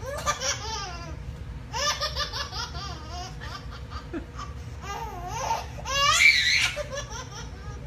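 A baby laughing in several high-pitched bursts, the loudest near the end.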